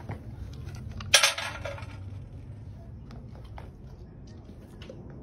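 Stainless steel dog food bowl clangs once against a concrete floor about a second in and rings briefly, followed by a few faint clinks as the dog noses at it.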